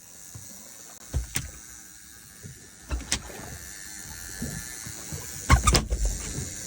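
Several sharp knocks and thumps over a steady background hum: a pair about a second in, another pair about three seconds in, and a louder cluster near the end.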